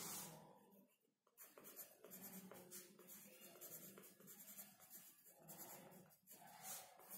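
Faint scratching of a pencil on paper as letters are written in quick short strokes, starting about a second and a half in.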